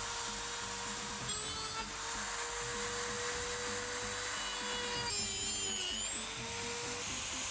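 Dremel rotary tool with a cut-off disc running at high speed, making a steady whine as it cuts through a metal model railway rail. The whine dips in pitch twice under load, about a second in and again around five seconds in, as the disc bites into the rail.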